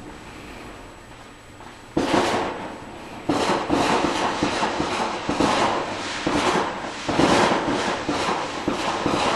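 Fireworks crackling and popping: a sudden burst of rapid crackle about two seconds in, then from about three seconds near-continuous dense crackling that swells and fades in waves.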